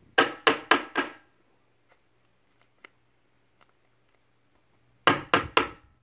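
Rigid clear plastic trading-card holder clacking as it is handled and closed. There are four quick, sharp clacks at the start and three more near the end.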